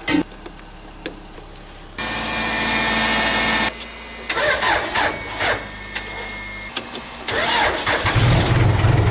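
Backhoe engine being jump-started: it cranks on the starter in two goes, then catches and settles into a steady run near the end. Its battery is flat, which the owner puts down to a phantom load draining it. A thump and a click come at the very start.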